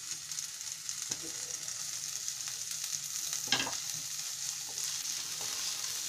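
Chopped vegetables sizzling in hot oil in a metal kadhai, stirred with a wooden spatula, with one louder knock about three and a half seconds in. This is the stage where the vegetables are being fried.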